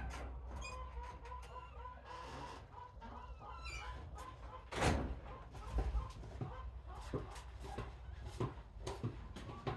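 Soft, short animal calls repeated on one pitch for the first few seconds, then a series of knocks, the loudest about five seconds in.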